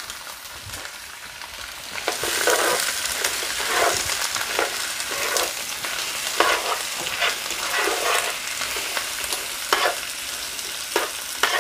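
Quail halves and chopped onion sizzling as they fry in hot oil in a frying pan, while tongs turn and stir them with irregular scrapes every second or so. The sizzle grows louder about two seconds in as the food is stirred into the oil.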